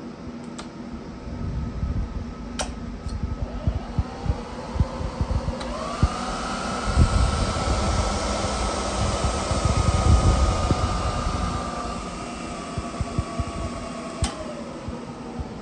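Electric machinery whirring with a steady hum. A whine rises in pitch about four to six seconds in, holds, then sinks again near the end, over a low, crackling rumble.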